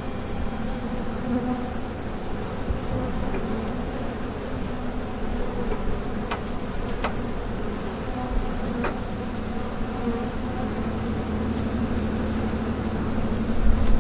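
Honeybees buzzing steadily in a dense hum, with a few faint clicks between about six and nine seconds in.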